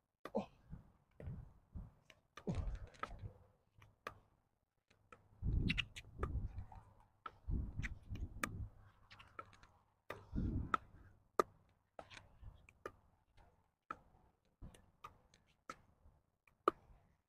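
Pickleball dinking rally: short sharp pops of paddles striking a plastic pickleball, mixed with the ball's bounces on the hard court, in an irregular string of about one or two taps a second. Dull low thumps, louder than the taps, come in a few times between them.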